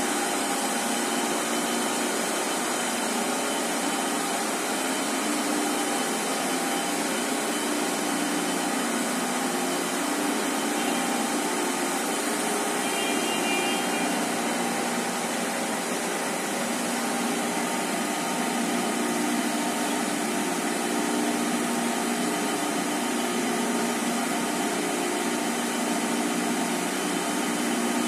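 A high-speed jumbo-roll tissue slitting and rewinding machine running, a steady whirring machine noise with several constant tones in it. A few brief high tones sound about halfway through.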